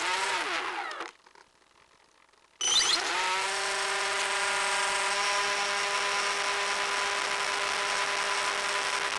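Electric motor and propeller of an FPV RC plane. It winds down with falling pitch and cuts out about a second in, stays silent for about a second and a half, then starts abruptly under throttle and holds a steady whine while the plane climbs.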